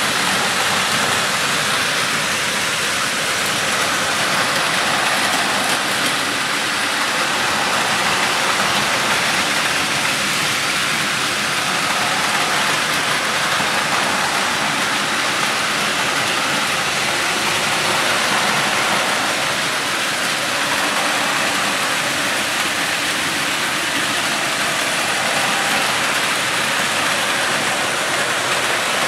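Many battery-powered Plarail toy trains running at once on plastic track around spiral towers, their small motors whirring and wheels rattling together into a steady, even clatter.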